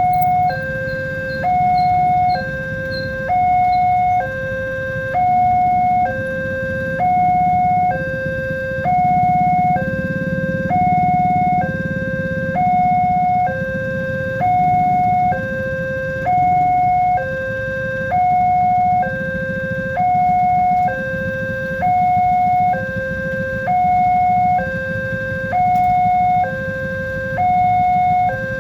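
Level-crossing warning alarm sounding a two-tone high-low signal, each tone held about a second and repeating without a break, over a low rumble.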